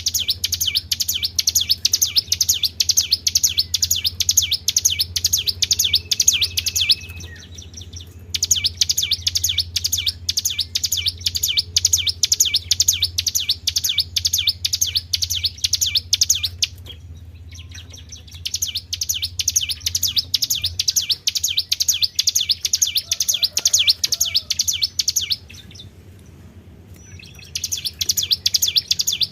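A songbird's rapid, high-pitched chirping trill of the 'tribel' type, used as a lure or training sound for caged songbirds. It comes in phrases of several seconds broken by three short pauses, over a steady low hum.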